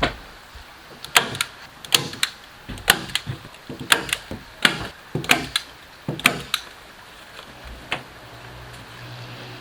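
A hand tool striking wood: about ten sharp, irregular knocks that stop around six seconds in, followed by one fainter knock.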